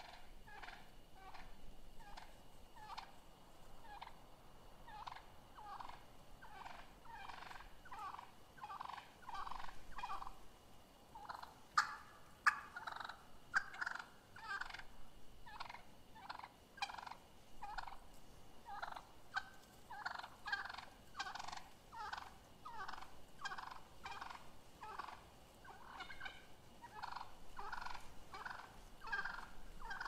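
Wild turkeys calling: a steady run of short calling notes, one to two a second, with a couple of sharper, louder notes about twelve seconds in.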